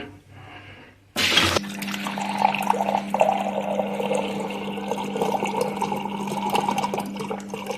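Samsung fridge water dispenser running, water pouring steadily into a container with a steady hum underneath; it starts suddenly about a second in. The water is being run through a newly fitted carbon filter to flush out air bubbles and any black carbon fines.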